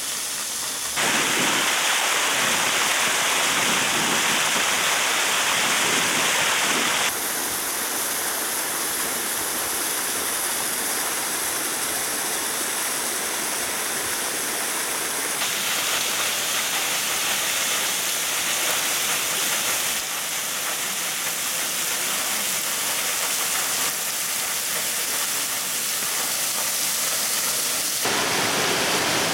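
Small mountain waterfall splashing down over rocks: a steady rush of falling water that shifts abruptly in tone several times.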